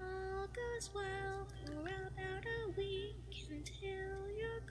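Faint background music: a high voice singing a slow melody in long held notes that slide between pitches, over a low steady hum.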